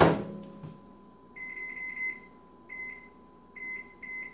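Microwave oven door shut with a sharp knock, followed by the keypad beeping at each button press as the cooking time is entered: a quick run of short high beeps, then several single beeps.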